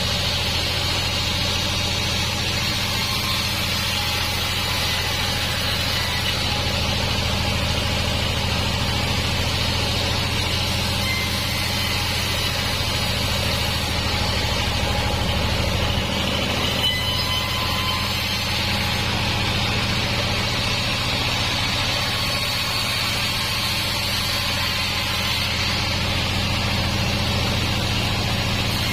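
Band sawmill running with a steady, even mechanical drone and a low hum.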